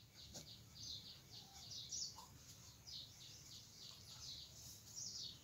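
Faint, repeated high bird chirps, each short and sliding down in pitch, over an otherwise near-silent background.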